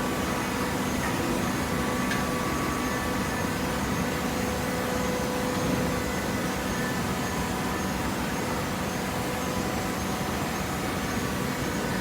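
Steady machine noise with a faint even hum, unchanging throughout.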